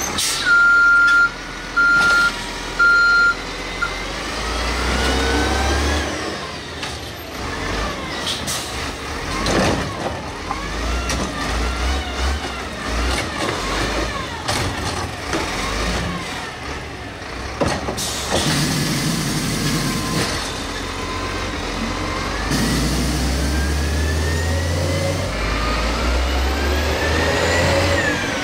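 Diesel engine of a Heil Mini Rapid Rail garbage truck revved repeatedly in neutral, its pitch climbing and dropping with each rev over a heavy low rumble. Three short high beeps sound in the first few seconds, and a few sharp clicks or hisses come in between revs.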